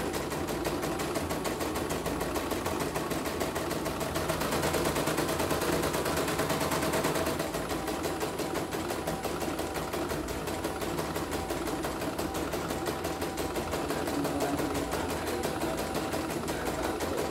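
CNY portable computerized embroidery machine stitching steadily at speed, its needle bar clattering in a fast even rhythm. It runs smoothly with its newly fitted rotary hook.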